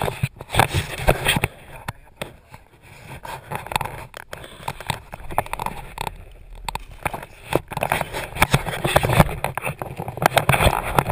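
Plastic vapor-barrier sheeting crinkling and rustling under a person crawling into a crawlspace, with irregular knocks and scrapes of hands and knees.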